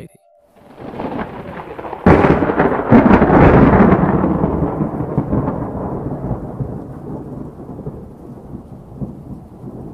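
Heavy rain with a thunderclap that breaks suddenly about two seconds in and rumbles away slowly under the downpour.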